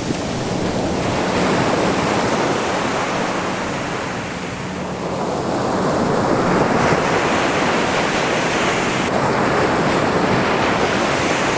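Ocean surf breaking and washing up the beach close by, with wind on the microphone. The wash swells twice, easing off in between.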